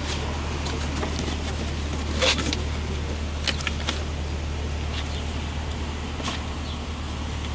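Steady low hum with a few sharp clicks and knocks from car parts being handled, the loudest about two seconds in.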